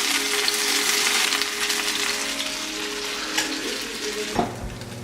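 Breaded fish chunks sizzling and crackling as they fry in hot oil; the sizzle cuts off suddenly about four seconds in.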